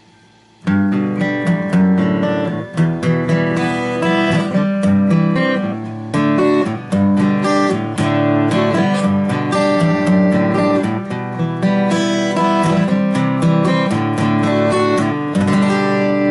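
A freshly tuned guitar being played, strummed chords and picked notes starting about a second in.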